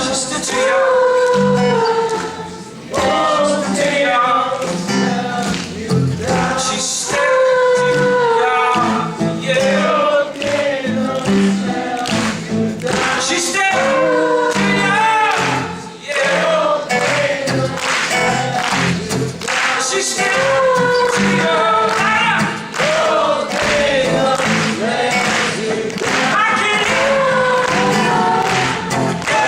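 A folk-rock song performed live, with a crowd singing along like a choir and keeping the beat with their hands in a steady rhythm.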